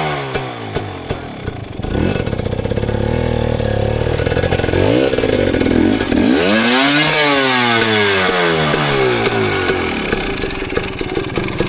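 Dirt bike engine revving hard in repeated surges, its pitch climbing and falling as the bike is worked through rough singletrack. The longest, highest rev comes about six to seven seconds in, then the engine drops back to lower, choppier running near the end.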